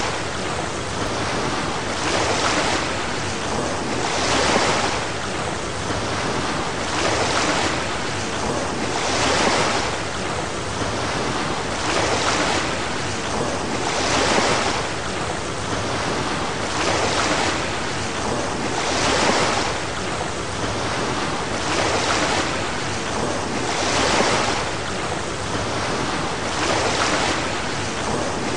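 Sea water rushing in a steady wash that swells and eases about every two and a half seconds, like waves rolling in.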